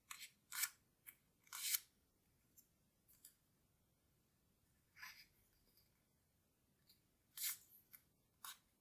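Origami paper crinkling and crackling as fingers fold and crease its small corners: a quick run of short crackles in the first two seconds, another about five seconds in, and two more near the end.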